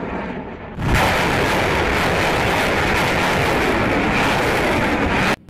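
Rocket launch: a loud, even roar of rocket motors, with a fresh blast setting in about a second in and cutting off suddenly near the end.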